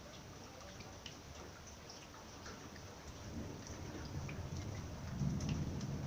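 Rain dripping and ticking in scattered drops, with a low rumble of thunder that builds from about halfway through and is loudest near the end.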